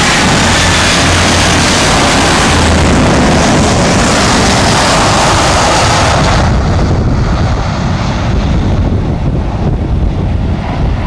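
Loud, steady jet noise from a four-engined jet airliner passing low overhead on final approach. About six and a half seconds in, the sound turns suddenly duller and more distant, with wind on the microphone, as the aircraft comes in over the runway to land.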